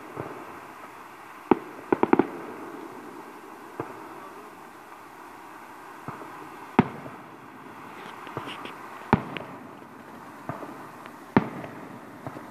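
Aerial firework shells bursting with sharp bangs at irregular intervals, including a quick cluster of three about two seconds in. A faint crackle follows a burst about eight seconds in.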